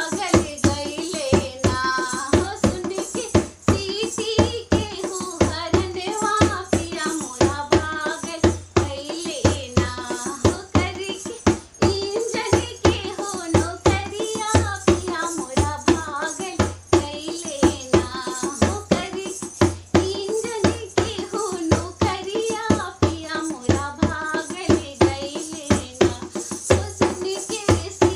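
A woman singing a humorous Bhojpuri folk song, her melody carried over a steady percussion beat.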